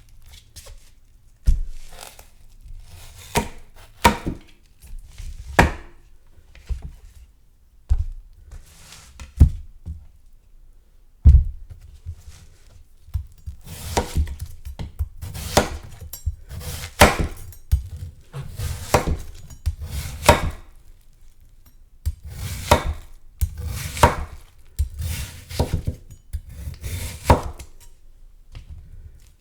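Knife cutting a whole watermelon: sharp knocks as the blade comes down, with crisp cracking of rind and flesh. The knocks come one at a time, about one a second at first, then the cutting gets busier and crackly from about halfway.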